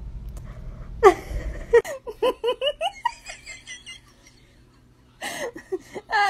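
A person laughing in a run of short giggles, then a brief pause, then laughing again near the end.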